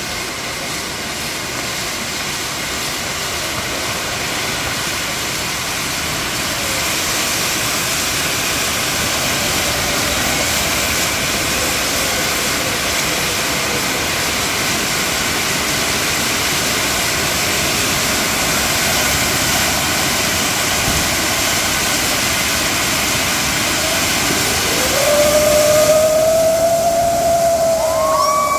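Kambam, a tall tower of fountain fireworks, spraying sparks with a steady rushing hiss that grows a little louder over the first several seconds. Near the end a single held whistle rises slightly above it.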